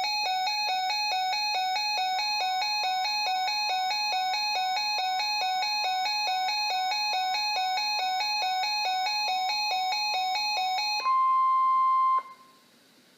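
Emergency weather alert tones: a rapid electronic beeping alarm at about four beeps a second, then a steady single tone of about a second that cuts off suddenly, the NOAA Weather Radio warning alarm tone that comes before a warning message.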